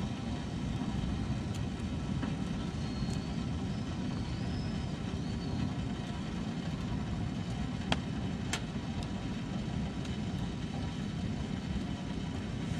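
Wood fire burning with a steady low rush and a few sharp crackling pops, the loudest about eight seconds in.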